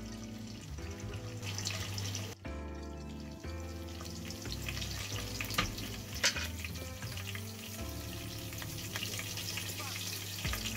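Chopped garlic sizzling in hot refined oil in a nonstick kadai, a steady frying hiss with many small crackles. Background music plays underneath.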